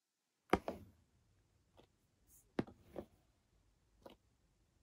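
Cardboard figure box handled on a tabletop: a sharp knock about half a second in, then several lighter taps and clicks and a short brushing sound as it is turned around.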